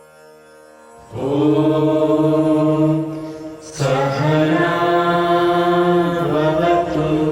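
Devotional chanting: a voice sings long held notes over a steady instrumental drone. The first note comes in about a second in, and a second long note follows after a brief break near the middle.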